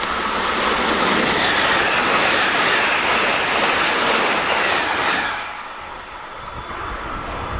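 A train passing close by: a loud rush of wheel and rail noise that holds for about five seconds, then drops away sharply.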